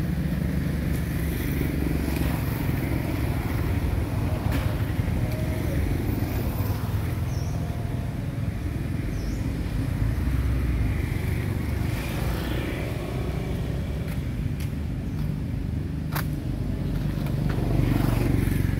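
Steady low rumble of motor vehicles running, with one sharp click about sixteen seconds in.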